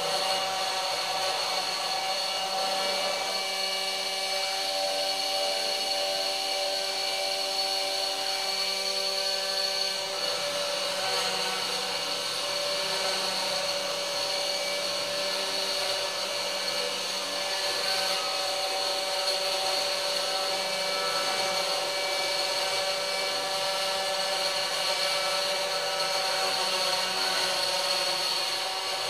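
Homemade CNC milling machine running a cut: the spindle motor's steady whine, with the stepper motors' tones shifting as the axes change direction, while the bit grinds grooves into a fibreboard sheet.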